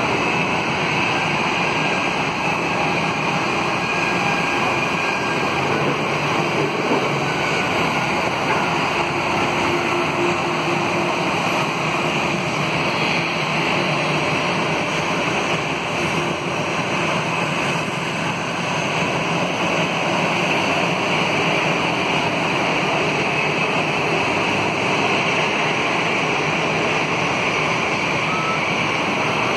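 Steady rushing noise of airliner jet engines at taxi power, a Boeing 787-8 among them, with no rise in thrust.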